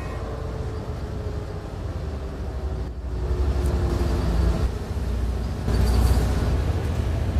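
Low rumbling vehicle noise: a train running along an elevated track, with a faint whine that slowly falls in pitch. About three seconds in it gives way to street traffic rumble, which grows louder about six seconds in.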